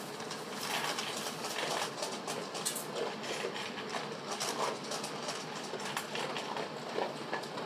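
Bag being handled: irregular rustling and crinkling with quick light clicks and taps.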